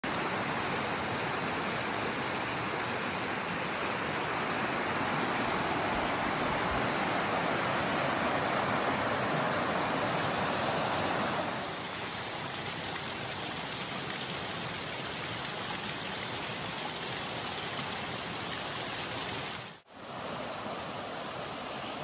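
Rushing water of small mountain streams and waterfalls, a steady hiss. It drops a little in level about eleven and a half seconds in and cuts out for an instant near the end.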